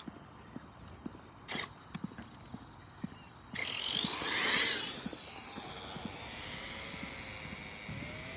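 A 6x6 RC crawler's electric motor and gear train winding up hard from a standstill about three and a half seconds in on a top-speed run, its whine climbing steeply in pitch, then settling into a fainter steady whine that edges slowly higher as the truck runs away. A few light clicks come before the launch.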